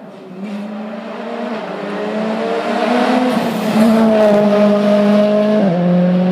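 Rally car's engine approaching at speed and passing close by, growing louder to its peak about four seconds in. The engine note drops sharply near the end.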